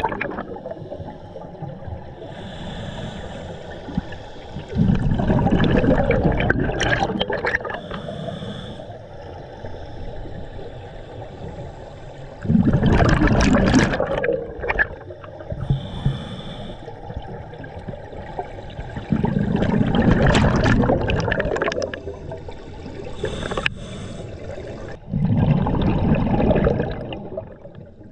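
Scuba diver breathing through a regulator underwater: a short hissing inhale, then a burst of exhaled bubbles lasting two to three seconds, repeating four times at an even pace of about one breath every six to seven seconds.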